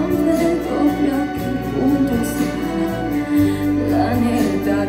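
Live chamber ensemble of strings and keyboard playing held chords as the accompaniment of a ballad, with no sung words; a low bass note comes in about three and a half seconds in.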